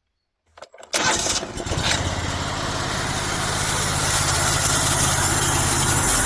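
Homemade sawmill's engine starting about a second in, then running steadily.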